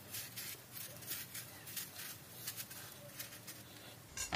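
Small kitchen knife peeling an apple: faint, crisp scraping strokes as the blade cuts under the skin, coming irregularly.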